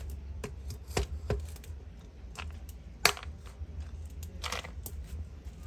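A few scattered knocks and clicks of food preparation, the loudest about three seconds in, with a short scrape near four and a half seconds, over a steady low rumble.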